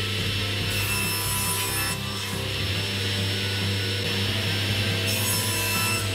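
Table saw running and cutting wood: a steady motor hum under a loud hiss of the blade through the board, which swells about a second in and again near the end.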